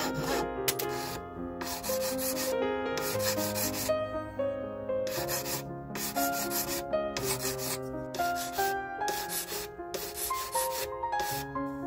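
Repeated back-and-forth strokes of a flat hand file rasping against the freshly sawn end of a thin silver tube, about one stroke every half-second to second.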